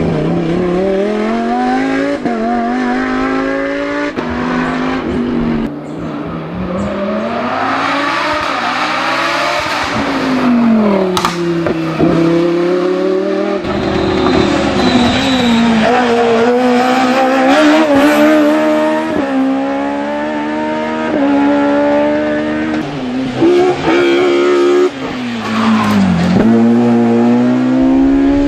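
Lamborghini Huracán Super Trofeo race car's V10 engine revving hard, its pitch climbing again and again through the gears and dropping at each shift. There is one sharp crack from the exhaust about eleven seconds in.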